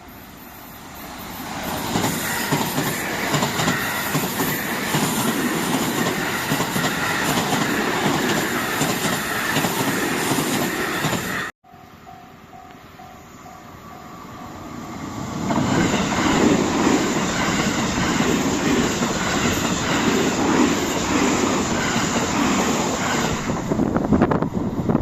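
Two trains passing a JR Kobe Line level crossing, cut together: each builds up over a second or two into a loud, steady rush of wheels on rail with clatter and some squeal. Just after the cut the crossing's warning bell dings in a quick repeating pattern before the second train arrives.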